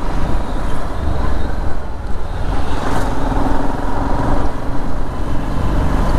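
City traffic noise heard from a moving motorcycle: a steady rumble of engines and road noise, with a faint steady engine tone coming in about halfway through.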